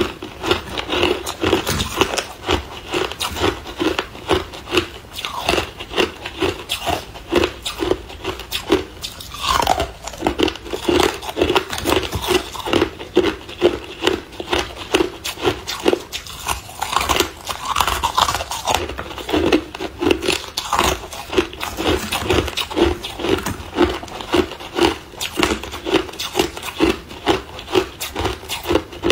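Hard clear ice being bitten and chewed: a continuous run of sharp crunches, about three a second.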